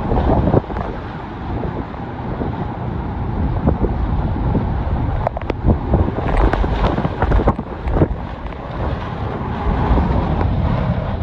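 Hurricane wind gusting across the microphone, a loud rumbling buffet that swells and eases, with scattered sharp knocks and rattles throughout.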